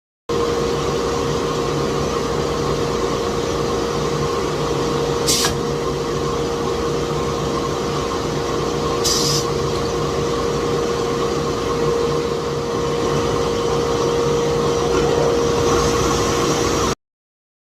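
Steady machine hum with a constant tone, broken by two short hissing bursts about five and nine seconds in; it cuts off suddenly near the end.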